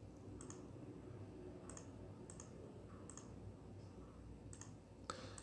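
Computer mouse button clicking, faint, about six separate clicks at an uneven pace, the last a little louder, over a low room hum.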